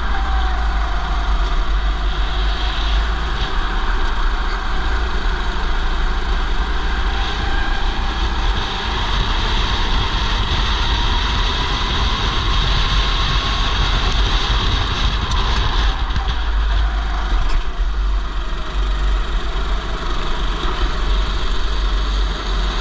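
Racing go-kart engine running under way, its pitch rising and falling through the corners, with other karts close by. Heavy wind buffeting on the helmet-mounted microphone runs under it.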